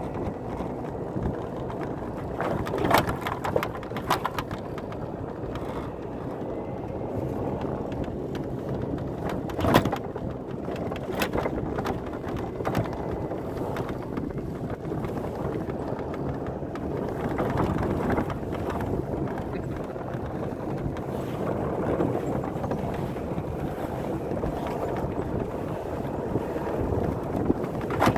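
Golf cart driving on a snow-covered road: a steady rumble of the cart and its tyres on snow, with several sharp knocks and rattles along the way.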